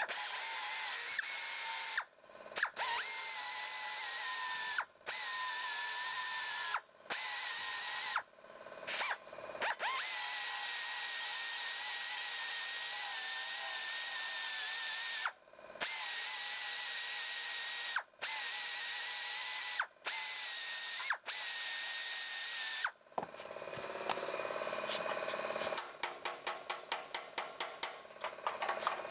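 Pneumatic finger belt sander grinding steel along a door-skin seam to wear away spot welds that are not letting go. It runs with a steady hiss and a high whine, stopping briefly about nine times between passes. Near the end the grinding stops and rapid light taps follow.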